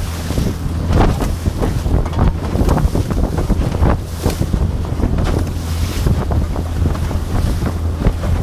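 Sioux Trucker 4.50 fiberglass open boat running through short, steep chop with the waves on its side. The hull slaps and spray splashes irregularly over a steady low motor hum, and wind buffets the microphone.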